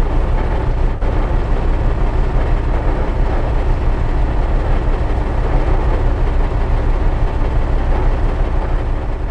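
Large V8 engine running steadily, a low-pitched, even drone with no revving.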